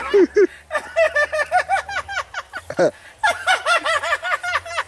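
A person laughing in two runs of quick, evenly spaced 'ha' syllables, one about a second in and another past the three-second mark.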